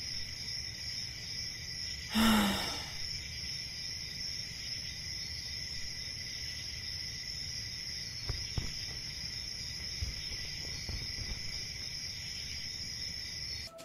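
Steady cricket chirping as a night-time background. About two seconds in, a short loud whoosh.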